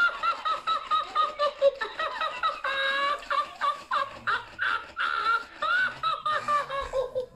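TMX Tickle Me Elmo plush toy laughing in Elmo's high-pitched recorded voice: a rapid, unbroken run of giggles. A low hum joins under it about halfway through.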